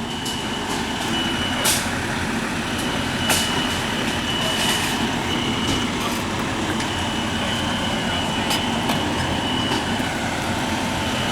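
Steady outdoor traffic-like noise with a building's fire alarm sounding faintly through it: a thin high-pitched tone that cuts in and out in stretches of about a second. A few brief sharp noises stand out above the noise.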